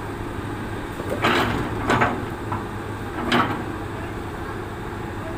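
Excavator diesel engine running steadily with a low hum. Three short, louder bursts of noise come over it, about a second apart.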